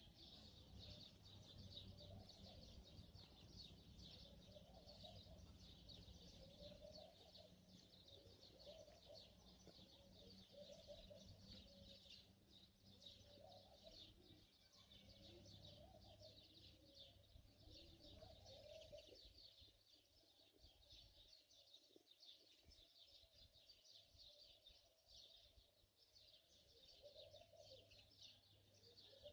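Very faint crackling of chicken pieces frying in oil in a pan, with soft short calls repeating every second or two at a lower pitch.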